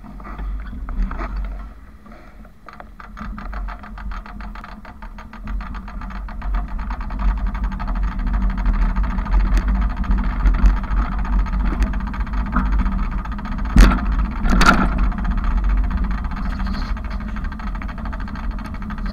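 Bicycle riding noise: a steady low rumble, with a run of rapid ticking between about two and eight seconds in, and two loud knocks about a second apart a little past the middle.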